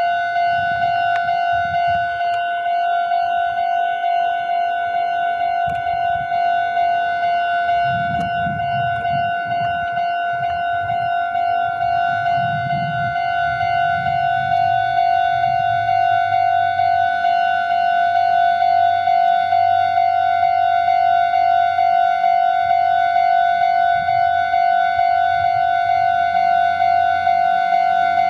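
Japanese railway level-crossing warning bell ringing: a fast, even, repeating electronic ding on one steady pitch that keeps going. A lower rumble swells under it around the middle.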